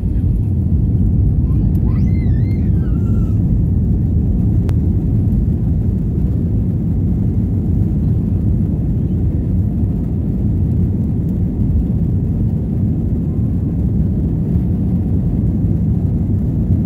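Steady low rumble of a jet airliner's engines and rolling wheels heard inside the cabin while it rolls slowly on the runway before takeoff. A brief wavering high-pitched sound comes in about two seconds in.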